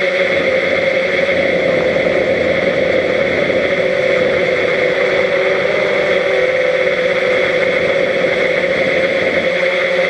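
Quadcopter's four brushless electric motors and propellers whirring steadily in flight, heard up close from on board the craft, with a steady pitched hum over a noisy hiss.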